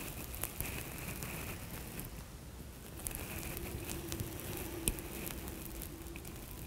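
Faint, scattered crackling and small ticks in a quiet room, with one sharper click about five seconds in.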